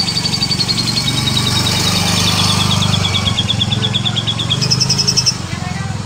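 Domestic canary singing rolling trills of quick repeated notes, about eight a second, each run stepping a little lower in pitch. Near the end it switches to a faster, higher trill. A steady low hum runs underneath.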